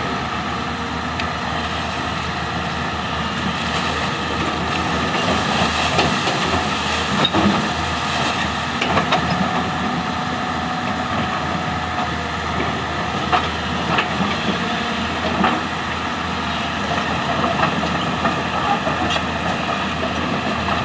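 Diesel excavators at work, their engines running steadily under load, with a few sharp knocks now and then.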